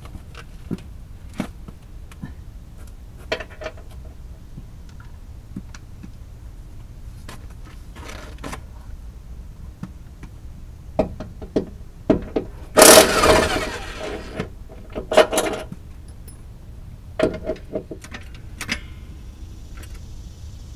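Impact wrench rattling in several short bursts as it breaks loose the 21 mm bolts of the transmission mount bracket, the longest burst about a second long some two-thirds of the way in. Light metal clinks of tools and sockets come in between.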